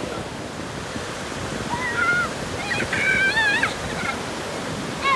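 Surf breaking and washing up onto a sandy beach in a steady rush. A high-pitched voice shouts and squeals a few times about two to three and a half seconds in, louder than the surf.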